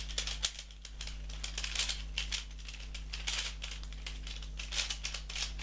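A Pyraminx pyramid puzzle being twisted fast by hand during a timed speedsolve: a rapid, uneven run of plastic clicks and clacks.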